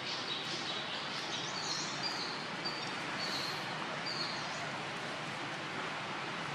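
Outdoor ambience: a steady background hiss with small birds chirping, a run of short high notes over the first four seconds or so.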